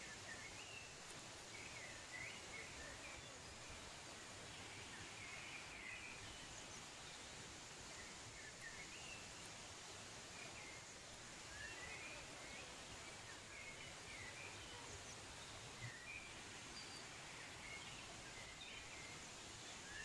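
Faint outdoor nature ambience: a steady soft hiss with small birds chirping in short, scattered phrases throughout.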